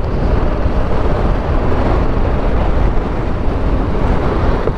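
BMW G 310 GS motorcycle under way, its engine and tyre noise nearly buried under wind rushing across the microphone: a loud, steady, dense rushing noise.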